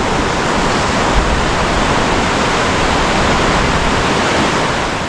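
Río Buey's water rushing, a steady, even rush of noise.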